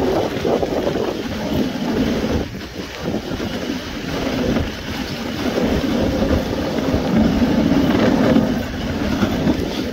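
Dog sled running over a snow trail: a steady rushing and scraping of the runners, with wind buffeting the microphone.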